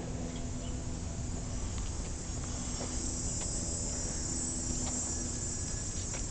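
Steady, high-pitched chorus of insects that grows louder about three seconds in, over a low rumble.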